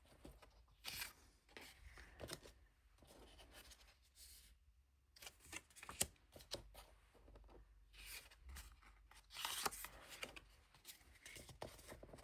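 Thick, cardboardy tarot cards being handled and leafed through by hand: faint sliding and rustling of card against card, with a few soft clicks and taps.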